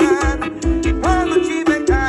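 Music with a heavy bass beat and a bending melody line.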